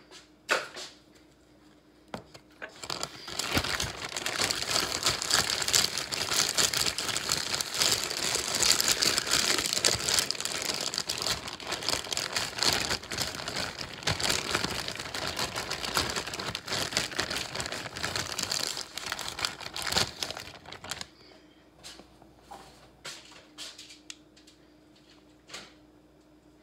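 Zip-top plastic bag holding raw chicken leg quarters and dry seasoning being handled and shaken to coat the chicken: continuous loud plastic crinkling for about eighteen seconds, then it stops and a few light knocks follow near the end.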